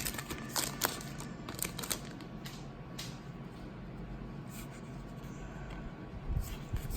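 Trading cards being handled and sorted by hand, with a few sharp clicks and rustles in the first three seconds, then fainter handling noise and a few soft low knocks near the end.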